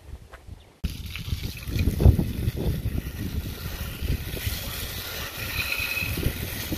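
Garden hose spray nozzle spraying water onto an alloy wheel and tyre, a steady hiss with splashing that starts abruptly about a second in.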